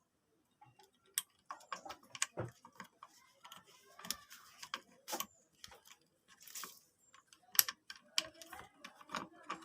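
Irregular clicks, taps and light knocks of small hard objects being handled, the loudest about two-thirds of the way through; no motor running.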